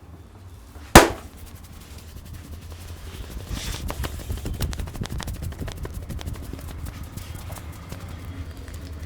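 A single loud bang about a second in, followed by scattered clicks and knocks over a steady low hum.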